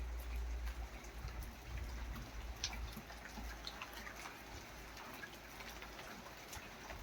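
First scattered raindrops of a thunderstorm, light and irregular, ticking and dripping, over a faint hiss and a steady low rumble.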